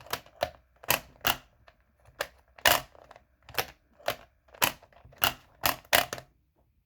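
A series of sharp, dry clicks, unevenly spaced at about two a second and some in quick pairs, stopping about six seconds in.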